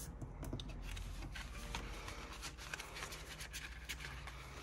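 Faint rustling with scattered light clicks and taps of paper bills and challenge sheets being handled.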